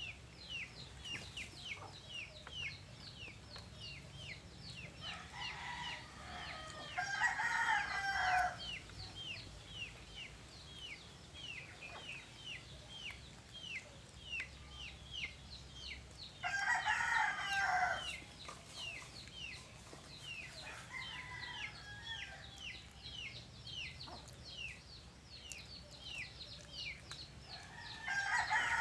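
Rooster crowing several times, about six, sixteen and twenty seconds in, with another crow starting near the end, over a steady run of quick, falling high chirps at a few per second.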